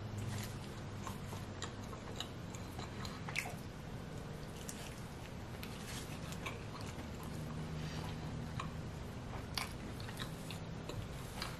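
A person biting into and chewing a mouthful of pepperoni pizza, with scattered wet mouth clicks and smacks.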